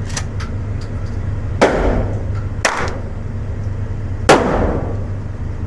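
Gunshots at a shooting range: four irregularly spaced shots, each with a short echo, the loudest about four seconds in.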